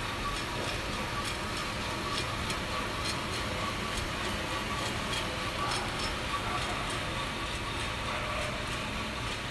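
Commercial drum coffee roaster running mid-roast: a steady mechanical whir with a faint held tone, and scattered faint ticks from the beans tumbling in the drum.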